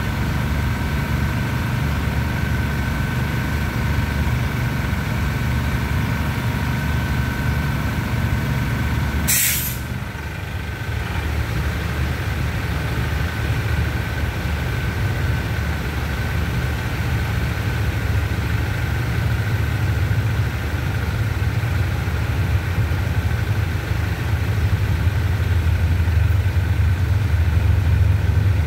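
Diesel railcar engine idling steadily at the platform, with one short, sharp hiss of released brake air about nine seconds in. The low rumble grows louder near the end as an oncoming diesel locomotive-hauled train approaches.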